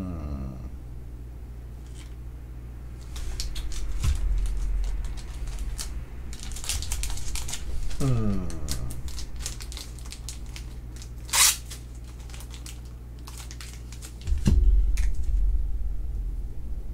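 Handling noise from trading cards, plastic card holders and boxes on a desk: rustling, clicking and tapping, with dull thumps and a short, sharp rasp about eleven seconds in. Two falling pitched glides sound, one at the very start and one about eight seconds in.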